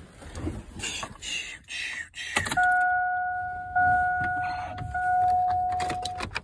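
Rustling and knocking as a phone is handled inside a car, then a steady electronic warning chime from the car, one held tone repeated in three stretches of about a second each, stopping just before the end.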